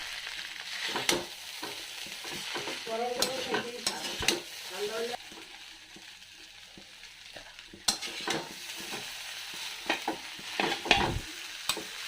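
Boiled noodles sizzling in oil in a karahi while being stirred and tossed with a spatula, with repeated knocks and scrapes of the spatula against the pan. The frying hiss drops lower for a few seconds in the middle.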